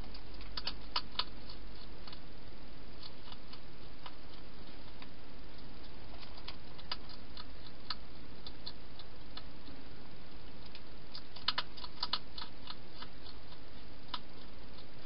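Wild hedgehog eating dry food inside a plastic feeding box: scattered sharp crunching clicks, with two brief flurries about half a second and eleven seconds in, over a steady hiss.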